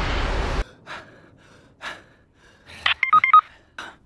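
Anime punch sound effect: a loud rushing noise that cuts off abruptly under a second in. Then a quiet room with a few short faint gasps or breaths and a brief run of beep-like stepped tones near the end.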